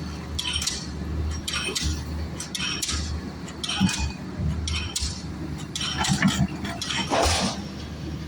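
Repeated light metallic clinks, roughly one or two a second and unevenly spaced, over a steady low hum.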